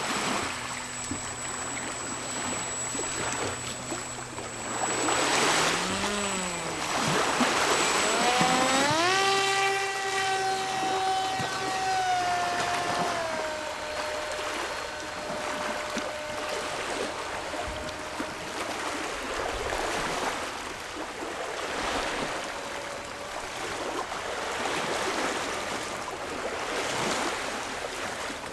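Icon A5 RC seaplane's motor and propeller whining as it throttles up off the water: the pitch climbs steeply about six to nine seconds in, holds high, steps down a little later, then fades away as the plane flies off. A steady rush of wind and lapping water runs underneath.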